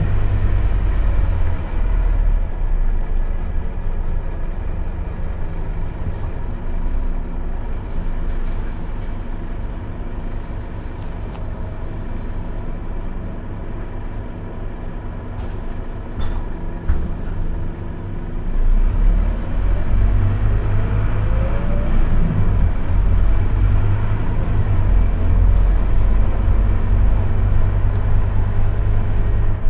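Scania OmniLink single-deck bus heard from inside the passenger cabin: its engine running with a steady low rumble, quieter for a stretch, then working harder from about 19 seconds in, its note rising as the bus accelerates.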